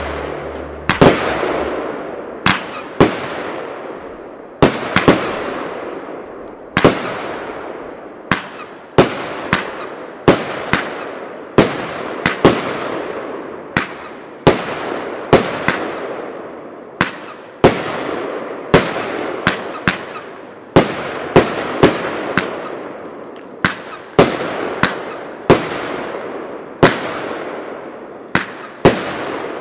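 Fireworks cake, the Glittering dahlia, firing shot after shot: sharp bangs at one to two a second, each followed by a fading rush of noise.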